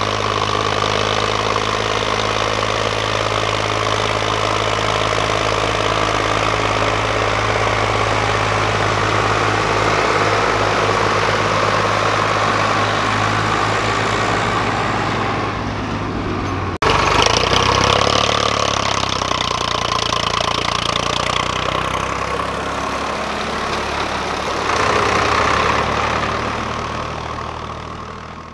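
Tractor diesel engines, a Farmtrac 60 towing a Swaraj 744 FE hauling a loaded trolley, running steadily under load. The sound breaks off abruptly about 17 seconds in, the engines are heard again straight after, and the sound fades out near the end.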